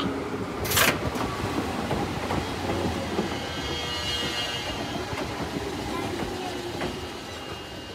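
Chichibu Railway 7500 series electric train moving slowly past at close range: a steady rolling rumble with wheel clacks on the rails, gradually fading. A short sharp hiss comes about a second in.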